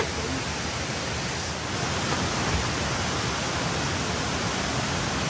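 Steady rushing of water from a waterfall cascade, an even hiss that swells slightly a little under two seconds in.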